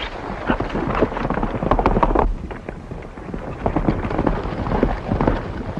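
Several horses galloping on a dirt trail, with a rapid, uneven clatter of hoofbeats.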